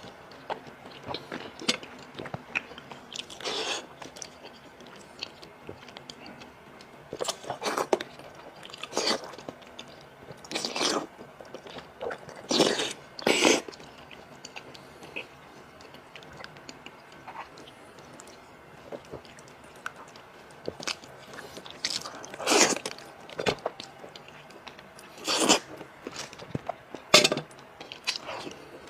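A person eating braised pork trotters close to the microphone: irregular wet chewing and biting sounds, with about a dozen louder mouthfuls spread unevenly through.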